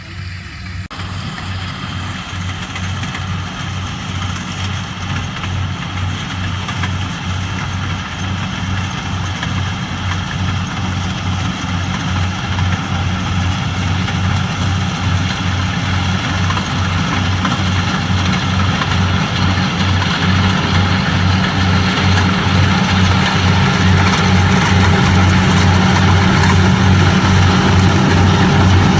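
Corn harvester's engine running with a steady, pulsing low throb, growing steadily louder throughout.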